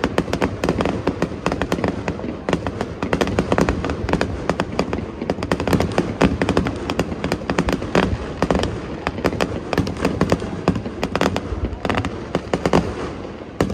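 Aerial fireworks display going off in rapid succession: a dense, continuous run of sharp bangs and crackles, many per second and overlapping.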